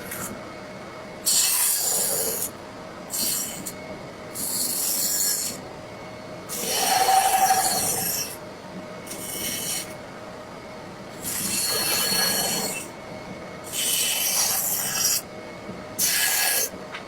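A hand tool scraping across wood in repeated strokes, each about a second long with short pauses between.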